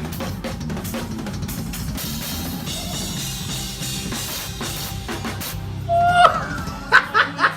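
Drum kit played with a band: busy bass drum, snare and rimshot hits for about six seconds, after which the music stops. A few short loud vocal exclamations follow near the end.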